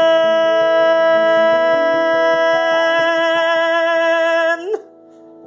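Man singing one long held note, with soft instrumental chords underneath; the note wavers briefly and breaks off about four and a half seconds in, leaving a short quiet gap.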